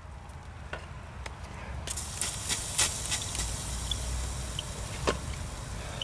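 Freshly brazed copper joint on an AC compressor sizzling and crackling as it cools inside the wet heat-barrier paste packed around it, building from about two seconds in, with scattered sharp ticks. The joint got a little overheated during brazing.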